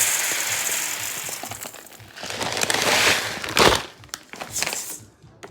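Dry rice pouring into the Instant Pot's inner pot as a steady hiss that fades about two seconds in, then a second rustling rush of grains that ends in a sharp knock a little past halfway, followed by a few light clicks.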